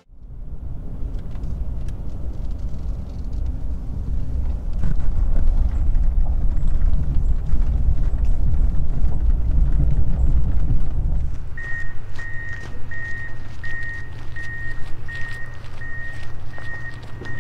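Vehicle running with a heavy low rumble. About two-thirds of the way in the rumble drops and a vehicle warning beep starts, a high tone repeating about three times every two seconds.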